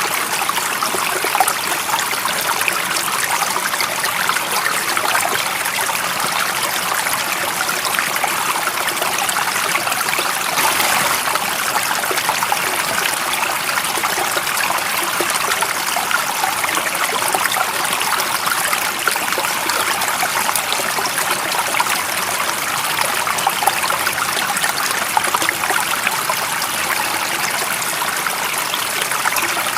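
Water of a stream running steadily, an even rushing sound without pauses.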